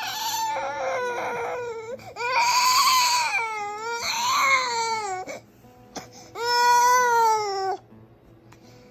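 Baby crying: fussy whimpering at first, then three louder, drawn-out wails with short pauses between them. It is the cry of a sleepy, tired infant.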